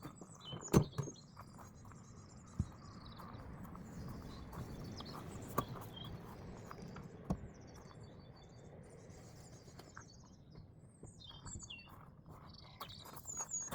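Wild birds chirping and singing in the background, with a few sharp knocks, the loudest about a second in.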